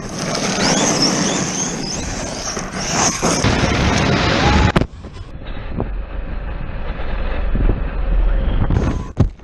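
A large 8S brushless RC car driving hard, its electric motor whining up and down in pitch over the noise of tyres on rough ground. About halfway in the sound cuts to a duller, steadier rumble with wind on the microphone.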